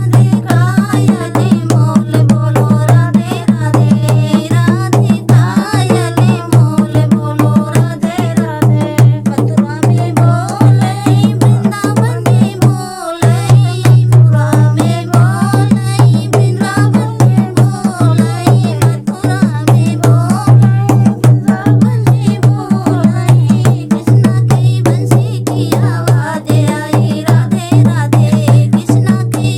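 A Hindi devotional bhajan: a voice singing a wavering melody over a steady hand-drum rhythm, with a brief break about halfway through.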